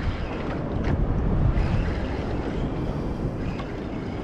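Steady wind noise on the microphone out on open sea, with water moving around a small fishing boat.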